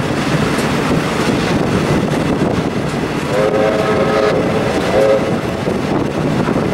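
Steady running noise of a train carriage on the track, heard from aboard. About three seconds in, a train horn sounds a chord of several notes, a long blast of about a second followed by a short one.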